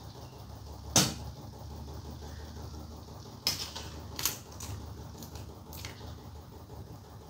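Cookware and utensils knocking together: one sharp knock about a second in, then a few lighter clinks a few seconds later, over a faint low hum.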